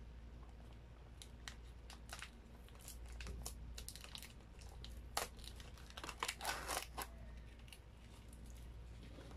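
Plastic hot sauce sachets crinkling as they are fingered and picked up off a cardboard pizza box: scattered soft crackles that bunch into a denser run of crinkling about five to seven seconds in.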